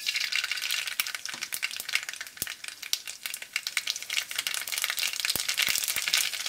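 Mustard seeds and cumin seeds crackling and sizzling as they hit hot mustard oil in a kadhai: a dense run of sharp pops over a steady sizzle, the sign that the oil is hot enough for tempering.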